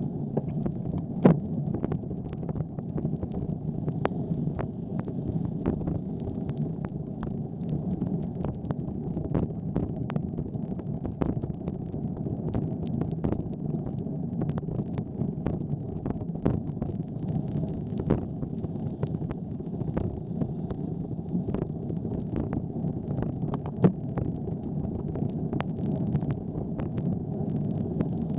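Wind buffeting the microphone of a bicycle-mounted camera riding on wet pavement in the rain: a steady low rumble with frequent irregular sharp ticks, two of them louder, about a second in and near the end.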